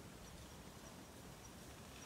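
Near silence: faint outdoor ambience with soft, short, high chirps every half second or so.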